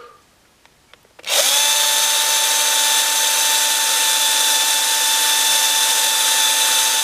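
Electric drill starting about a second in, quickly spinning up and then running at a steady speed with an even motor whine as it twists two copper wires clamped in its chuck; it stops right at the end.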